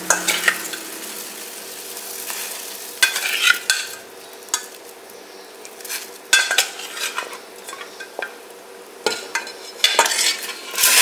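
Water boiling in a stainless-steel pot, a steady bubbling, broken by sharp metallic clinks of a steel ladle and a steel bowl against the pot as raw chicken feet are tipped in. The clinks come about three seconds in, again about halfway, and in a cluster near the end.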